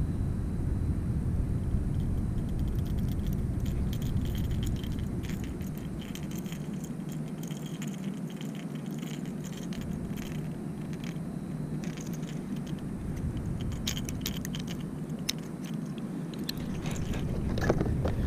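Steady wind noise on the camera microphone, with scattered small clicks and rattles as a clear plastic lure box and a lure are handled. The clicking gets busier near the end.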